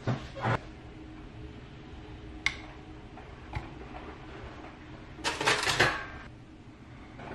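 Kitchenware clatter as a salmon fillet is moved from an air fryer basket onto a plate with a spatula: a few single clicks and taps, then a denser rattle of clinks and knocks about five seconds in, over a faint steady hum.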